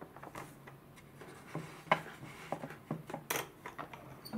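Hand crank of a 'Sushi Shokunin' toy sushi machine being turned: its plastic gears and rollers click and rub as they press cooked rice through. The clicks are irregular, with the sharpest about two seconds in and another just after three seconds.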